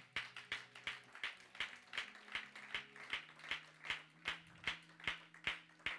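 Hand claps in a steady beat, about two and a half claps a second, over soft held low notes that change pitch twice.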